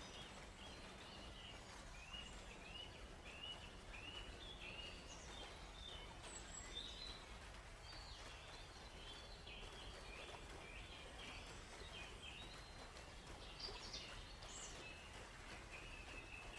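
Forest birds chirping over a steady low rush of flowing water: one bird repeats a short rising chirp over and over, and other, more varied calls join in partway through.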